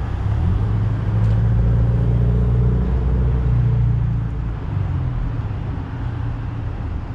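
Low engine rumble of a passing motor vehicle. It swells in at the start, holds steady, and fades back about halfway through.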